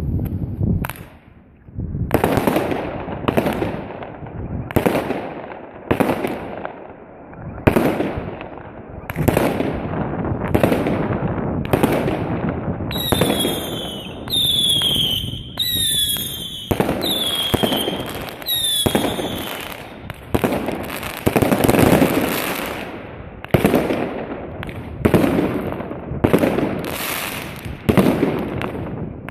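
Consumer firework battery (cake) firing shot after shot, about one launch and bang a second. Midway comes a run of whistling shots, each whistle falling in pitch.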